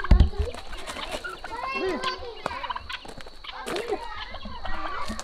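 A turkey gobbling several times. A low thump on the microphone just at the start.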